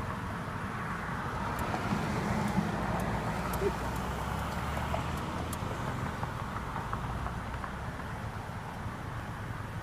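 Steady road traffic noise with a low engine hum, and a few faint clicks.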